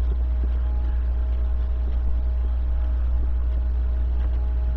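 A steady low drone with faint, steady higher hums above it: the unexplained 'strange sound in the sky', which is likened to trumpets.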